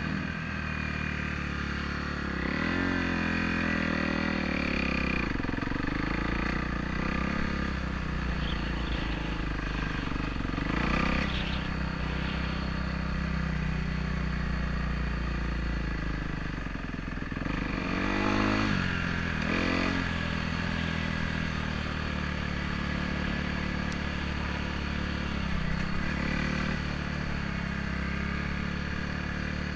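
Trail bike engine running while being ridden. Its pitch rises and falls as the throttle is opened and eased, with a few sharper revs along the way.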